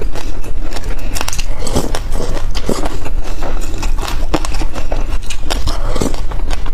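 A metal spoon scraping and scooping through a glass dish of dry sesame seeds, a loud dense crackle of many small seed clicks, mixed with the crunch of sesame seeds being chewed.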